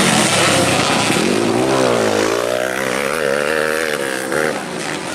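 Two grasstrack racing motorcycles with engines revving hard and close together. The pitch rises and falls again and again as the riders work the throttle through a bend.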